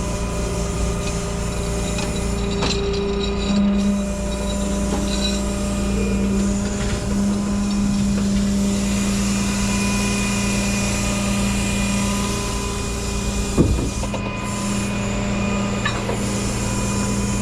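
A rollback tow truck's engine runs with the hydraulics engaged while the flatbed is drawn back in, giving a steady hydraulic hum. A few sharp knocks and clanks come from the moving bed, one at about 2.5 s and two more near the end.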